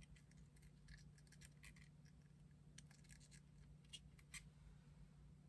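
Near silence: a low steady room hum with a scatter of faint small clicks and scratches from handling a plastic squeeze bottle of CA glue as drops are dabbed onto a wooden model frame, the two sharpest ticks around four seconds in.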